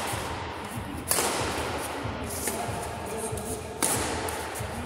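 Badminton rackets striking a shuttlecock in a rally: sharp smacks, two loud ones about a second and nearly four seconds in with a lighter one between, each echoing in a large hall.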